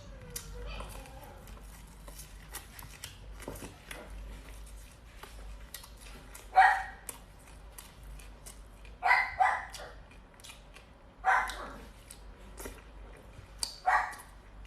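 A dog barking about six times in short groups: a single bark, then a double, a single and a double, spaced a couple of seconds apart.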